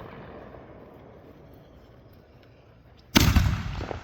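A firework bursts with one loud boom about three seconds in, its rumble trailing off over most of a second.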